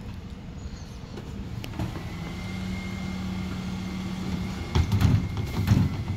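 Refuse collection lorry running, with a steady high whine coming in about two seconds in. A few heavy low thumps follow near the end.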